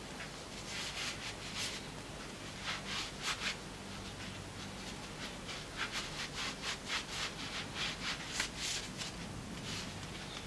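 A rag rubbed briskly over a removed Classic Mini rear radius arm to clean off old grease. It goes in quick scrubbing strokes: two short bouts early, then a longer, faster run in the second half.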